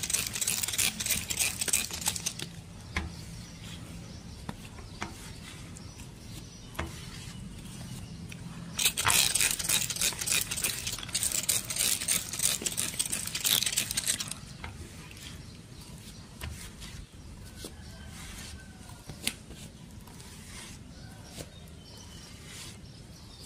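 Hand squeegee wiping water off a wet car windshield in quick scraping strokes. There is one spell of strokes at the start and another from about nine to fourteen seconds in, with a few fainter wipes between.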